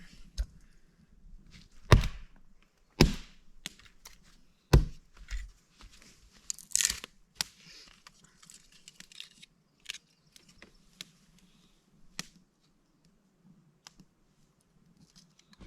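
Dry firewood sticks being snapped and knocked together while building a campfire: three loud sharp cracks in the first five seconds, then lighter clicks, crackles and rustling.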